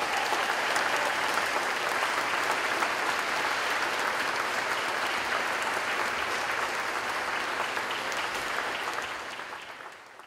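Church congregation applauding the newly presented bride and groom: dense, steady clapping that fades out near the end.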